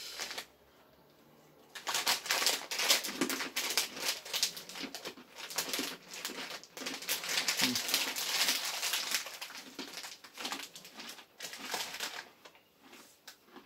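Plastic snack bag of pretzels crinkling and crackling as it is opened and handled, starting after a brief pause and dying down near the end.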